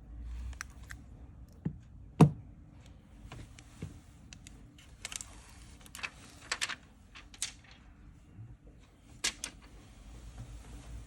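Irregular clicks and taps of small hard objects being handled and set down on a work surface, with one sharp knock a little over two seconds in.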